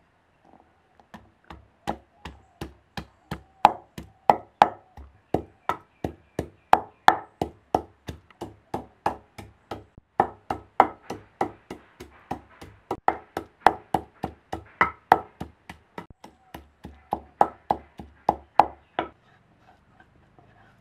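Wooden pestle pounding garlic cloves in a wooden mortar: steady, even strokes at about three a second, with a short break about halfway through, stopping shortly before the end.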